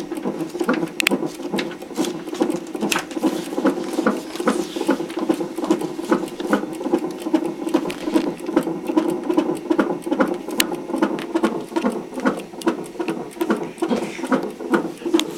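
Fetal heartbeat at 28 weeks of pregnancy, picked up by a CTG monitor's Doppler ultrasound probe and played through its speaker: a fast, even pulsing rhythm.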